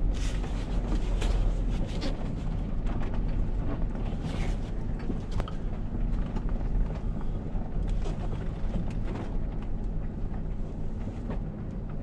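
Camper van rolling slowly along a gravel road, heard from inside the cab: a steady low engine and road rumble, with scattered clicks and knocks from tyres on gravel and the van's body.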